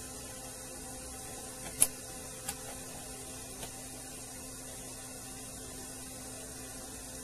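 Steady low hum with a few single sharp clicks from computer keyboard keys, the loudest nearly two seconds in and a smaller one just after.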